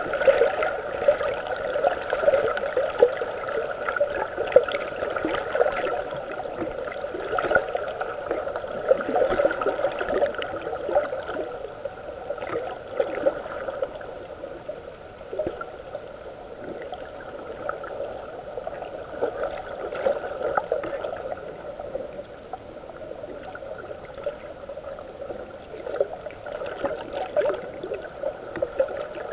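Underwater water noise picked up by a GoPro Hero 3+ in its waterproof housing: a continuous churning, gurgling wash with frequent small crackles and pops. It is louder in the first half, eases off in the middle and swells again near the end.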